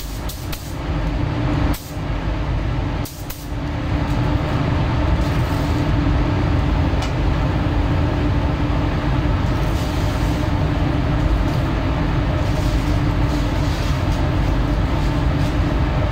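Steady rush of air with a low hum from a car paint spray booth's ventilation and spray equipment during clear-coat spraying. It drops out briefly a few times in the first few seconds, then runs on unbroken.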